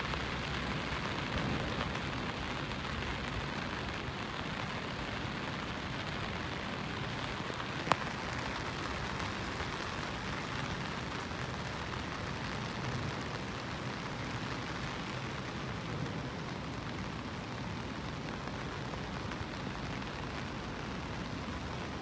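Steady rain falling on wet paving and foliage, an even hiss throughout. A single sharp click sounds about eight seconds in.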